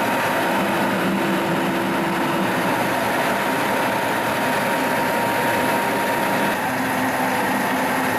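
Milling machine running, its cutter milling a valve relief into a diesel piston crown and throwing off chips: a steady machining noise. The tone of the running changes about six and a half seconds in.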